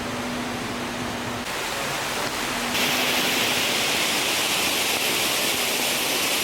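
Steady hissing outdoor ambience that changes abruptly about one and a half and three seconds in, with a brighter high hiss over the last few seconds.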